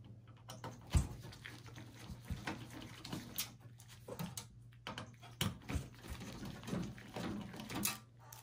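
Phillips screwdriver turning out hard-drive mounting screws in a steel PC case: scattered small clicks, taps and scrapes of metal on metal, the sharpest about a second in.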